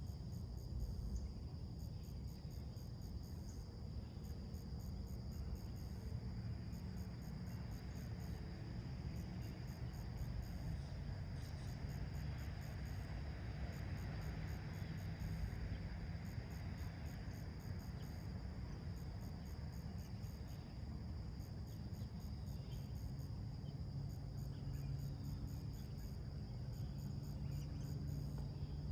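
Insect chorus: rapid trains of high chirps repeated in groups, over a steady high buzz. Beneath it runs a low rumble, with a broad hiss that swells and fades in the middle.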